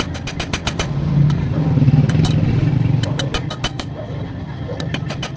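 A motor vehicle engine running, its hum swelling louder for a couple of seconds in the middle, with a run of sharp clicks and ticks over it.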